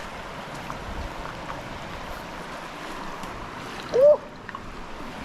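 River water flowing steadily, with a short loud voiced exclamation about four seconds in.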